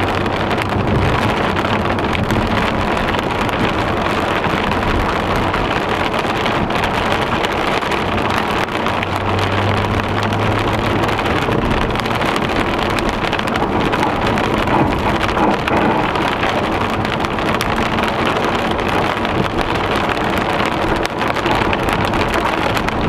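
Heavy rain pelting a car's roof and windshield, mixed with the engine's low hum and tyres hissing on the wet road, heard from inside the cabin as a steady, unbroken roar of noise.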